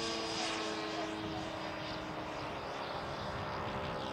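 Electric ducted fan of an HSD Super Viper 105 mm RC jet in flight: a steady rushing whine with several steady tones, its high hiss softening after about a second and a half.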